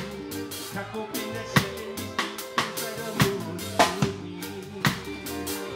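Live band playing a song: a drum kit keeps a steady beat with sharp, evenly spaced hits, over sustained notes from the ukulele and keyboard.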